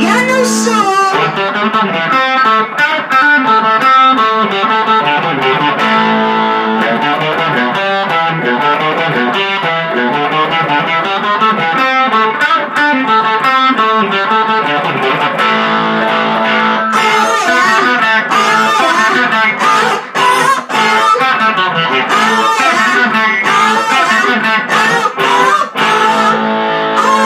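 Single-cut electric guitar playing hard-rock riffs and lead lines, with the notes changing quickly throughout.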